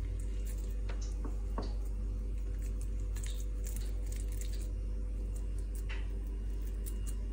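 A steady low hum with a few faint, scattered clicks and light handling sounds.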